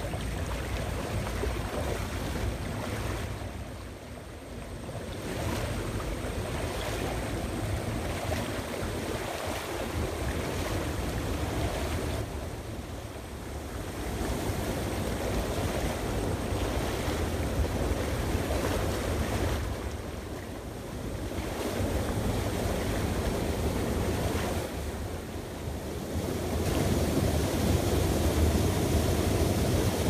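Swift, rain-fed stream rushing around rocks while someone wades through it, with wind rumbling on the microphone. The rush dips briefly a few times and grows louder near the end.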